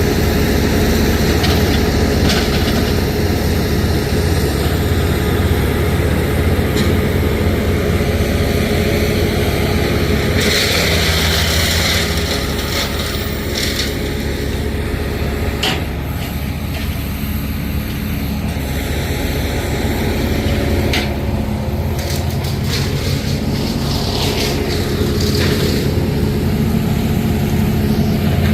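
Engine running steadily with a low, even hum, with a short burst of hiss about ten seconds in.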